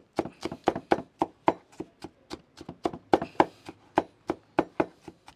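Knife chopping red bell pepper: quick, even strokes, about four a second, with a short sharp click at each one.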